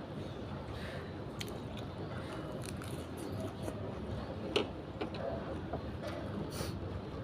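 Close-miked eating sounds: chewing and mouth noises of someone eating noodle soup and lettuce, with scattered small clicks and one sharper click about four and a half seconds in.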